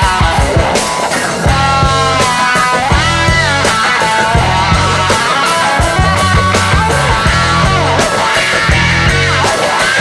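Rock background music with electric guitar, drums and bass, and a singing voice in places.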